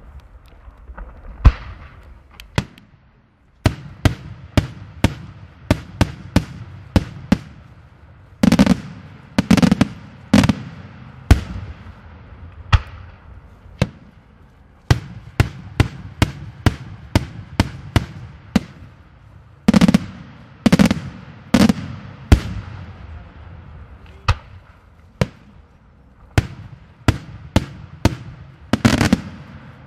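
Daytime fireworks: aerial shells bursting overhead in a steady string of sharp bangs, one or two a second, with a short lull about three seconds in. Heavier clusters of louder reports come about a third of the way in, two thirds in, and near the end.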